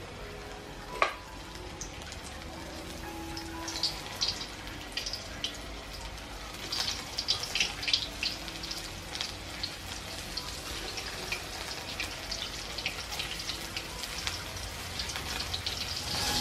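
Coated chicken deep-frying in hot oil in a steel wok: a steady sizzle with crackling pops, busiest about halfway through. A single sharp click about a second in.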